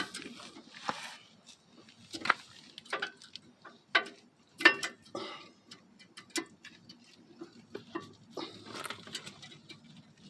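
Irregular clicks, taps and knocks of hand tools and metal brake parts being handled during a brake pad replacement, about one a second, some sharper than others.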